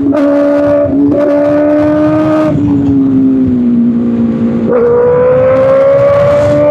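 A 2025 Kawasaki Ninja ZX-6R's inline-four running loud through an Arrow Pro Race exhaust, ridden under power at high revs. The engine note is cut briefly about a second in and again past the middle, as with gear changes. Between the cuts it holds, sags slowly, then climbs steadily near the end.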